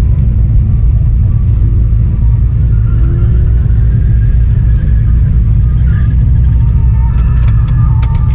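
A vehicle engine running with a steady deep rumble, with a quick run of sharp clicks about a second before the end.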